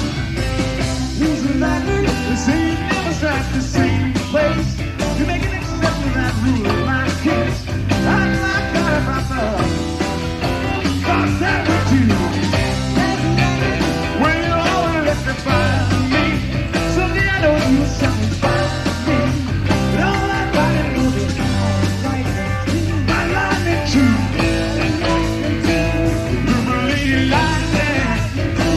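Rock song playing: a sung voice over a full band with a steady beat.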